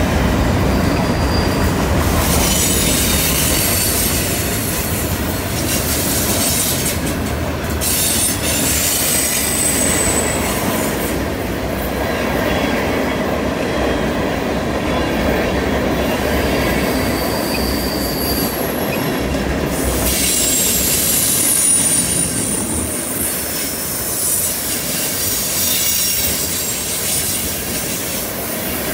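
Freight cars of a long train rolling past on a curve: a steady rumble and clatter of steel wheels on rail. High-pitched wheel squeal comes and goes, the wheel flanges grinding against the rail through the curve.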